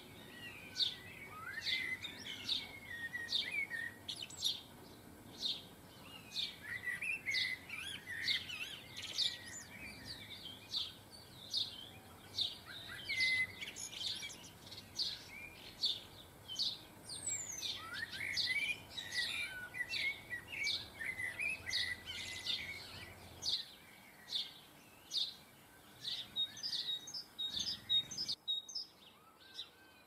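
Small garden birds chirping and twittering around the seed feeders: many short, high chirps in quick succession, with a brief lull near the end.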